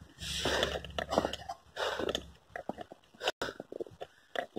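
Footsteps crunching in fresh snow while walking, a string of short, irregular crunches, with some low rumble of handling noise on the phone microphone in the first half.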